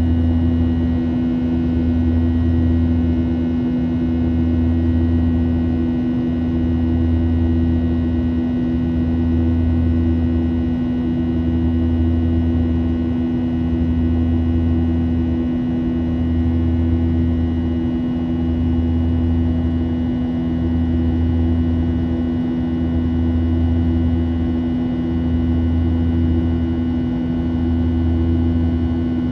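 Boeing 737-800's CFM56-7B turbofan engines at climb power, heard inside the cabin as a steady drone with constant low tones. A low throb swells and fades about every two seconds.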